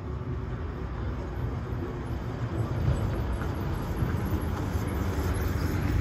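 Road traffic: a low rumble of passing vehicles that grows louder toward the end.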